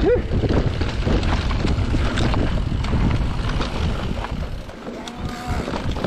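Wind rushing over the microphone and the rattle of a mountain bike riding down a dirt singletrack, with frequent small knocks and clicks from the bike over the rough ground.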